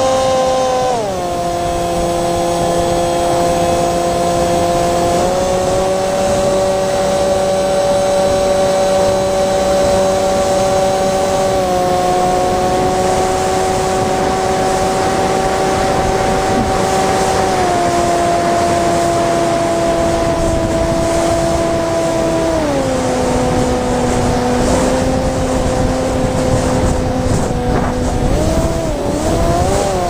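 Electric motor and propeller of a Sweepwings Flinch FPV flying wing, heard from the onboard camera: a steady whine that steps down in pitch about a second in, up again around five seconds, down in stages later on, and wavers and rises near the end as the throttle changes, over a constant rush of wind.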